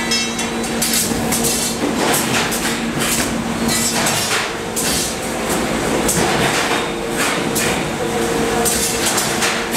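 Handheld pincer spot-welding gun firing welds onto the steel wire mesh of a foam wall panel: an irregular string of sharp cracks and clacks, about one or two a second, over a steady electrical hum.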